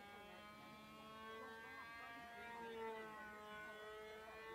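Radio-controlled model airplane's motor and propeller droning overhead, a steady buzzing tone that rises slightly in pitch partway through.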